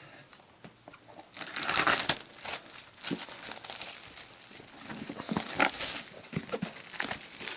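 Plastic shrink-wrap on a board game box being cut open with a folding knife and pulled away, crinkling and tearing in irregular bursts, loudest about two seconds in.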